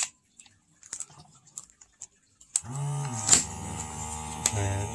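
Plastic buttons on an OSIM uGalaxy eye massager's handheld controller clicking as they are pressed, then, about two and a half seconds in, the massager starts up with a steady electric hum from its air pump and vibration motor, its pitch bending briefly twice.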